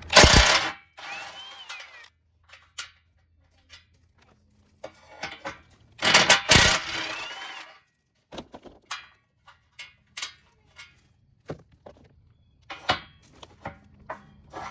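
Ryobi 18V cordless impact tool spinning 13 mm nuts off a car's front bumper reinforcement, in two loud bursts at the start and about six seconds in, each ending with the motor's pitch falling as it winds down. Short clicks and knocks of handling fill the gaps, with a shorter burst near the end.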